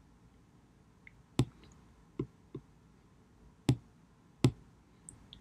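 Stylus tapping on a tablet's glass screen: about five sharp, irregularly spaced taps with a couple of fainter ones between.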